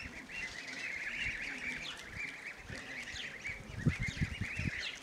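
A flock of young Kars geese (goslings) peeping: many short, high, overlapping chirps without a break. A few low thumps come about four seconds in.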